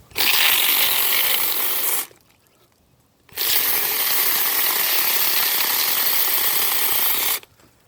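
Cordless 24-volt mini chainsaw with a 4-inch bar run in two trigger bursts, one of about two seconds and then, after a short pause, one of about four seconds, each starting and stopping suddenly with a steady, hissy running noise.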